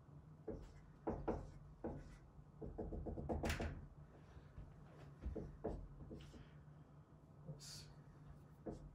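Dry-erase marker writing on a whiteboard: scattered taps and short strokes of the marker tip, with a quick run of taps about three seconds in as a dotted line is dabbed onto the board.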